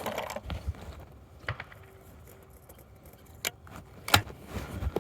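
TriStar Setter S/T 12-gauge over-and-under shotgun being handled and reloaded between shots: metallic clicks, clinking and scraping of shells and the break action. The loudest click, about four seconds in, fits the action snapping shut.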